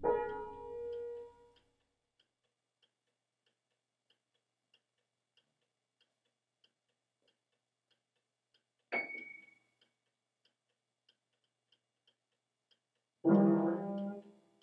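Spencer upright piano sounding with no one at the keys: notes struck at the start, a single high note about nine seconds in, and a louder low chord near the end, each ringing out and fading. A mantel clock ticks steadily throughout.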